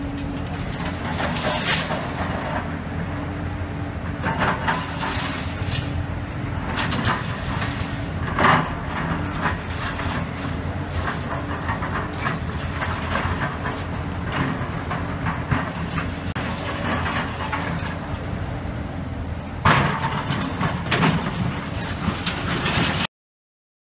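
Hydraulic excavator's diesel engine running steadily while its bucket scrapes and clatters through collapsed-building rubble and reinforcing steel, with irregular knocks and a couple of louder clanks. It cuts off suddenly near the end.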